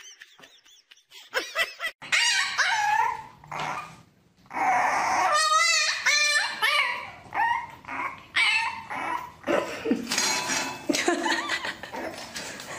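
A French bulldog puppy barking in a string of high-pitched yips and whines, with one quavering cry about halfway through; the first couple of seconds are quieter.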